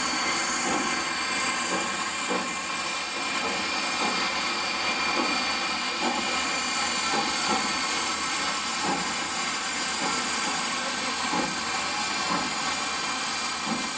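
Steady hiss of steam from a 2-8-0 Consolidation steam locomotive standing under steam, with faint irregular knocks beneath it.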